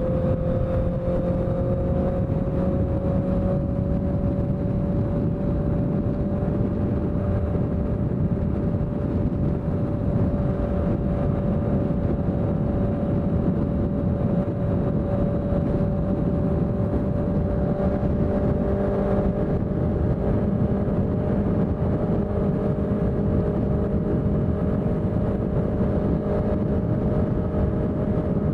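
Honda CBR650F's inline-four engine running through a CS Racing exhaust at steady revs. The pitch creeps up slightly over the first few seconds, then holds even.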